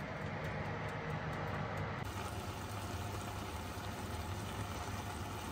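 Steady low hum of a kitchen fan running. About two seconds in it changes to the same hum under a pot of tomato, onion and cashew mixture simmering on the stove.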